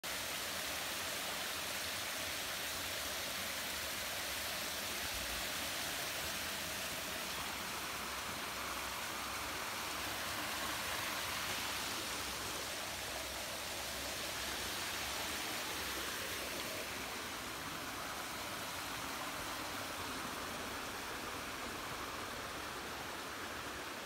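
Flowing stream water rushing over rocks: a steady, even hiss of running water with no distinct splashes.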